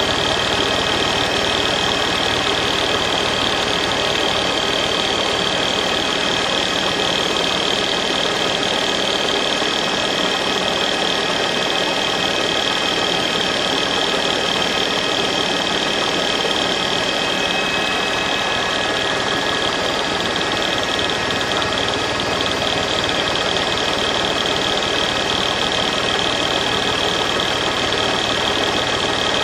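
Steady engine noise: a constant hiss with a high, even whine, unchanging throughout.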